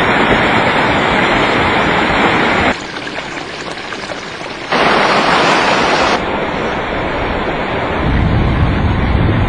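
A swollen river in flood rushing and churning over rapids, a loud, steady roar of water. The sound changes abruptly between takes: it drops quieter for about two seconds a little under three seconds in, then comes back loud and shifts again twice.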